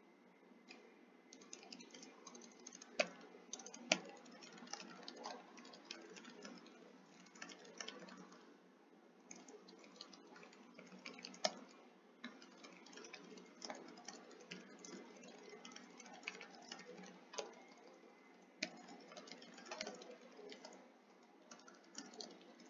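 Faint typing on a computer keyboard: irregular key clicks with short pauses, a few sharper clicks standing out.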